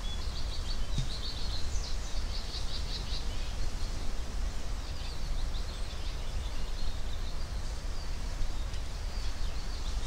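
Small birds chirping in quick high runs, busiest in the first few seconds and again around the middle, over a steady low outdoor rumble.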